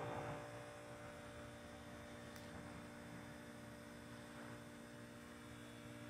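A 1999 Trane XL1800 R-22 heat pump condenser runs in its defrost cycle, giving a faint, steady hum with several steady tones.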